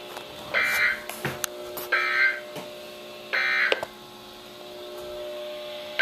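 NOAA Weather Radio sending the Emergency Alert System end-of-message data: three short, shrill digital bursts about a second and a half apart, over a steady radio hum with a few clicks.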